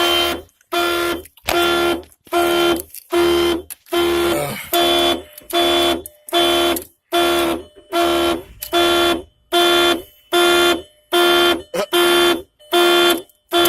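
2000 VW Jetta's door warning chime sounding over and over, a steady pitched tone repeating about three times every two seconds without a break.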